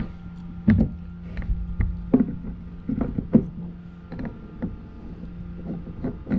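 Irregular knocks and clunks of a bulkhead fitting being worked into a plastic tank, over a steady low hum.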